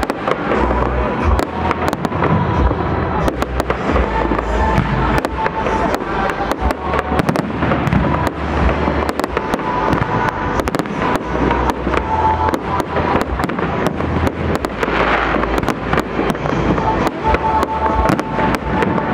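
Fireworks display: a dense, continuous run of bangs and crackles from shells and crackling fountain effects, with music playing underneath.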